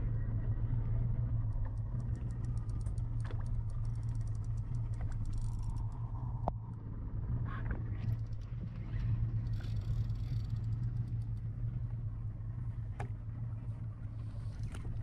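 Boat engine running steadily, a constant low hum, with a few light clicks and knocks over it.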